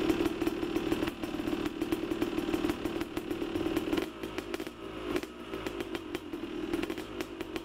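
Bench buffer motor running steadily, its Pryme cleaning wheel grinding against a motorcycle frame part to strip the old coating, with a dense rapid clatter from the wheel on the metal; it gets a little quieter about four seconds in.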